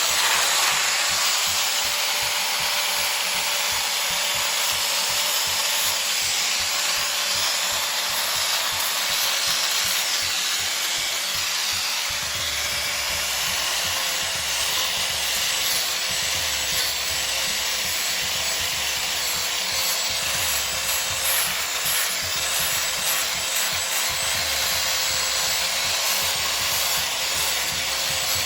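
Electric power sander running steadily against a wooden tree root: a constant motor whine over the noise of the abrasive on the wood, with a deeper rumble joining about twelve seconds in.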